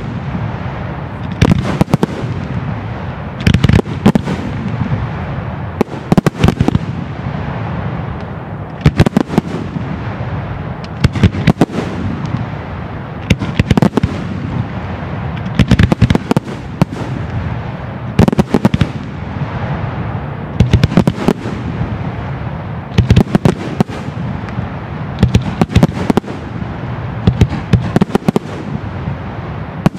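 Fireworks going off: clusters of sharp bangs about every two seconds, with a steady rumble and crackle in between.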